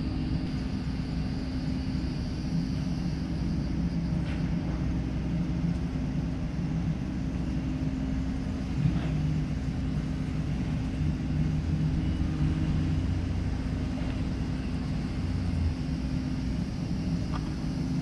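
Steady low mechanical rumble with a constant low hum throughout, and a few faint clicks.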